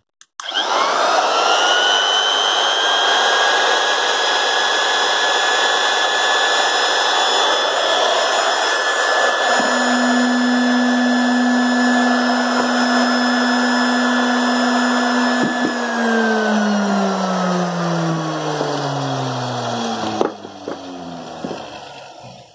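A 1977 Hitachi power tool's brushed electric motor switched on, spinning up to a steady high whine, with a deeper hum joining about halfway. It is switched off and winds down with falling pitch for a few seconds, with a knock just as it stops.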